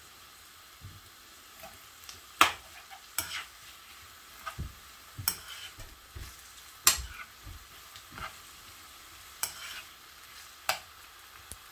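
Metal spoon stirring okra and sweet peppers frying in a non-stick frying pan: irregular sharp clicks and scrapes of the spoon against the pan over a faint sizzle.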